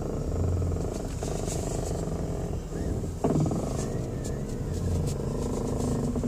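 A 2002 Ford Escape's steering makes a noise over the running engine, with a low hum that swells and fades and a quick falling sweep about three seconds in. The owner has been told it could be the CV joints or the steering column.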